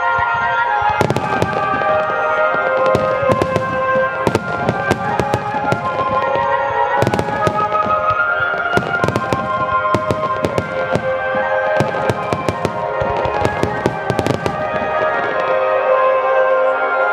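Fireworks shells bursting and crackling in quick succession over sustained music, a fireworks display set to music. The bangs come thickest through the middle of the stretch, while the held musical notes carry on underneath.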